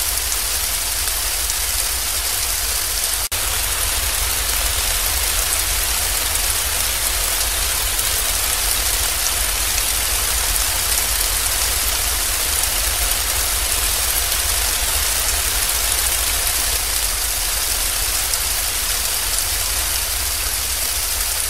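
Steady rain falling, a dense even hiss with a low rumble underneath. It drops out for an instant about three seconds in.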